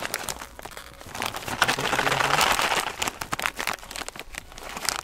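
Clear plastic packaging bag crinkling and rustling as small cardboard firework boxes are handled inside it, with a denser, louder stretch of rustling about two seconds in.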